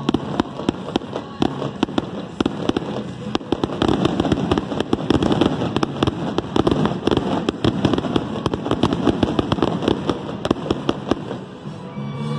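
Fireworks going off in a rapid, continuous string of sharp pops and crackles, with a steady rushing noise beneath, busiest through the middle.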